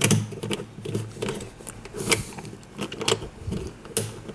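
Irregular plastic clicks and rattles of a Fangshi Shuang Ren 3x3 speed cube's pieces being pressed and fitted together during assembly, a fiddly fit that is hard to get in. The sharpest clicks come right at the start and again about four seconds in.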